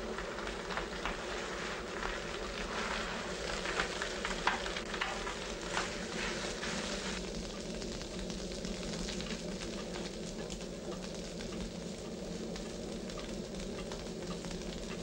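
Meat sizzling and crackling in a frying pan, with lots of small pops for the first seven seconds or so, then a softer, steadier sizzle.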